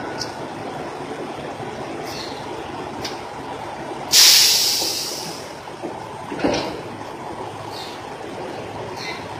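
A steady rumble of idling trucks, broken about four seconds in by a loud, sudden hiss of air like a semi truck's air brakes, fading out over about a second and a half. About two seconds later comes a dull thump, with a few light taps scattered around it.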